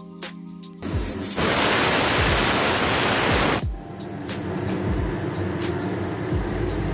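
Pressure cooker whistle valve venting steam: a loud, even hiss that starts about a second in and cuts off after roughly three seconds. Background music with a steady beat plays underneath and continues after it.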